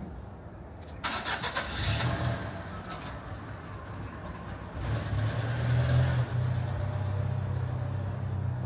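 A motor vehicle's engine: a sudden rush of noise about a second in, then a low, steady engine note that grows louder about five seconds in and keeps running.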